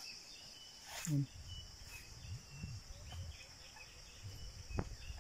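Steady high-pitched insect chorus outdoors, with short faint bird chirps over it. A brief voice sound comes about a second in, and a single knock near the end.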